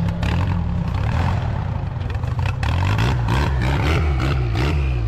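Car engine being revved in place, its pitch rising and falling over and over in the second half.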